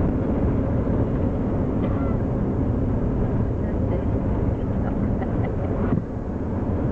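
Steady engine and road rumble heard inside the cabin of a moving four-wheel-drive vehicle, briefly dipping near the end.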